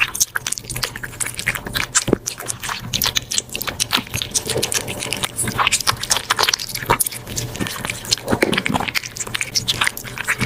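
A hairless cat chewing, with quick irregular crunching clicks throughout.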